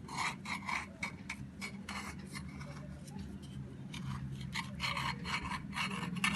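A utensil scraping around the inside edge of a cake tin to loosen a freshly baked sponge cake, in many short scraping strokes, over a low steady hum.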